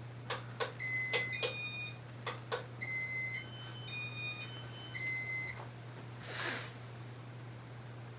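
Electronic control of a 1989 Casablanca ceiling fan beeping in demo mode. Several sharp clicks and short beeps come in the first two and a half seconds, then a string of beeps at changing pitches that ends about five and a half seconds in. A soft whoosh follows, over a steady low hum.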